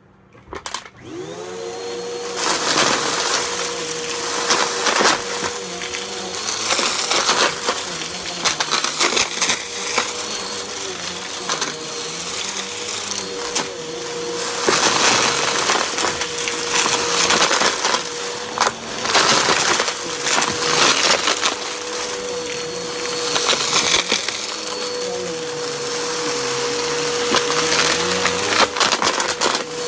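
Upright bagless vacuum cleaner switched on about a second in, its motor rising in pitch and settling into a steady whine. It is then pushed over carpet, and its brushroll picks up scattered lint and small hard beads with many sharp rattling crackles.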